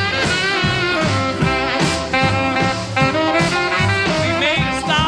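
Swing song playing: an instrumental stretch between sung verses, with melody lines over a steady beat.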